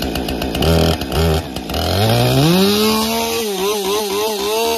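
Two-stroke gasoline chainsaw just started cold, choke off, running unevenly with a couple of short throttle blips, then revved up to a high, steady speed about two seconds in. Near the end the throttle is blipped several times in quick succession.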